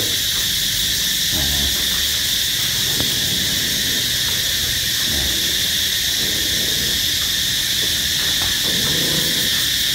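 Steady insect chorus: an unbroken high-pitched drone.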